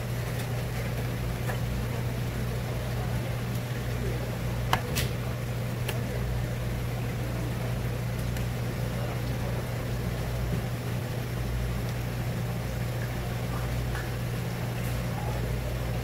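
Steady low machine hum with a few sharp clicks, the loudest about five seconds in.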